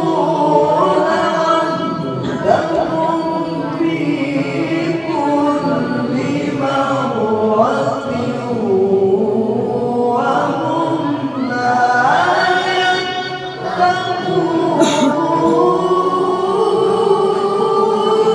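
A man's solo melodic Quran recitation (tilawah) in maqam Nahawand: long held phrases with sliding, ornamented pitch in a high voice.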